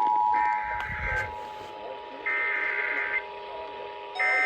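The tail of an Emergency Alert System two-tone attention signal cuts off about half a second in. Three roughly one-second bursts of SAME digital data follow, about a second apart: the buzzing screech of an EAS header.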